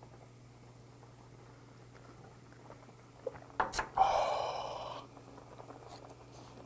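A person slurping and sucking in air through an open mouth for about a second, about four seconds in, taking in a hot mouthful of boiled webfoot octopus and spinach. A couple of small clicks come just before it, over a faint steady low hum.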